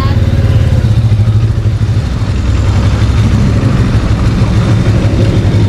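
Motorcycle engine running steadily at low revs, a loud low rumble with a fast even pulse.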